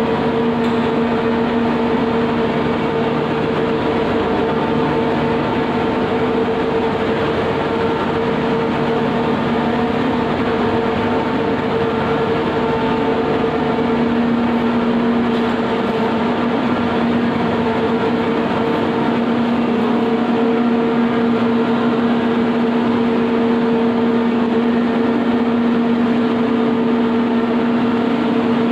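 Turmeric impact pulverizer running steadily, a loud even rushing noise over a constant motor hum.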